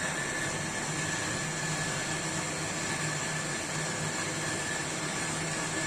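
Steady machine hum with an even hiss and a faint thin high whine, unchanging throughout.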